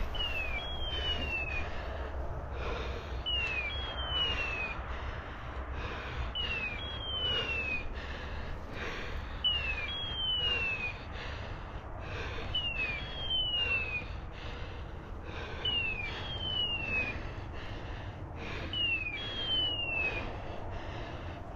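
Electronic beeper collar on a hunting dog sounding a repeating signal: a short falling whistle then a longer falling whistle, the pair coming about every three seconds.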